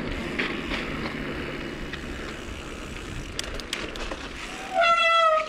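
Mountain bike riding through snow: a steady rush of tyre and wind noise with a few sharp clicks, then near the end a loud squeal of one steady pitch lasting about half a second, typical of the disc brakes being applied.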